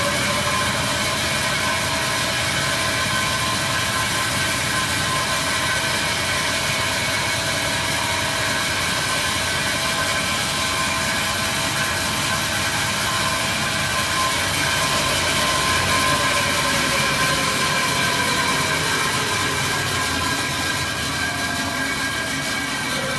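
Dake Johnson VH-24 variable-speed band saw running with a steady whine, its pitch dipping slightly about two-thirds of the way through.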